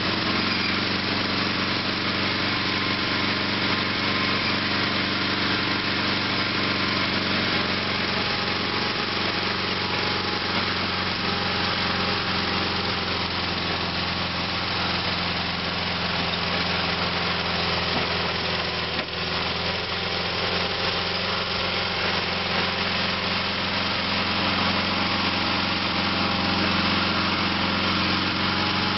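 Sears Suburban SS/16 garden tractor's Onan two-cylinder engine running steadily while the tractor pushes dirt with a front dozer blade. There is one short knock about two-thirds of the way through.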